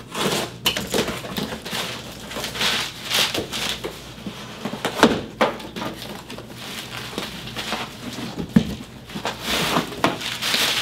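Cardboard shipping box being cut open with scissors and unpacked: scissor snips and cardboard scraping, then flaps pulled open and packing paper and plastic bubble wrap rustling and crinkling, in a run of irregular crackles and scrapes.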